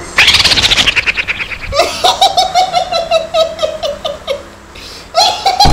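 Loud, high-pitched laughter in quick repeated ha-ha bursts, breaking off briefly twice.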